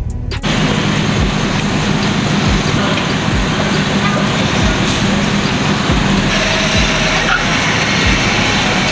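Engine and exhaust of a lifted Ford F-150 pickup running as it pulls across the lot, a steady loud rumble that comes in suddenly about half a second in. Under it, music with an even kick-drum beat.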